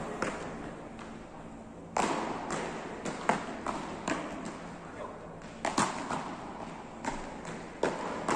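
Beach tennis paddles hitting the ball during a rally: a string of sharp pops at irregular intervals, several close together at times, echoing in a large indoor hall.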